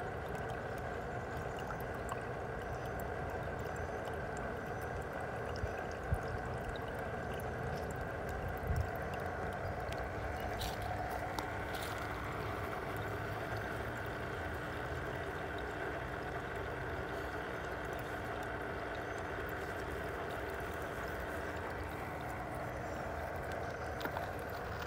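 Steady trickle and rush of water drawn through an above-ground pool's filter-pump circulation and homemade skimmer, over a faint steady hum. A few light knocks in the first third.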